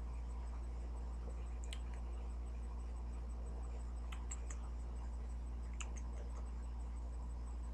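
A steady low electrical hum, with a few faint clicks about two, four and six seconds in.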